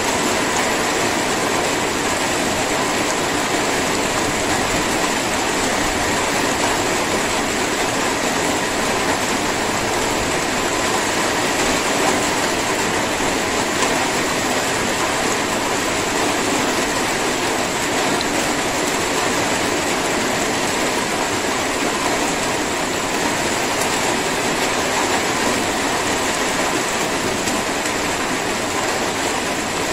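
Light rain (drizzle) falling steadily: an even hiss of many small drops with no breaks.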